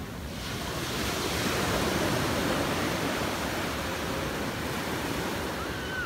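Sea surf washing onto a sand beach: a wave breaks and rushes up the shore, swelling about a second in and then easing off.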